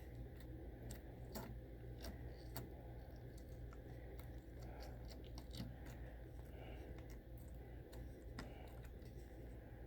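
Slime with add-ins being squished and worked by hand, giving faint, irregular small clicks and crackles over a steady low hum.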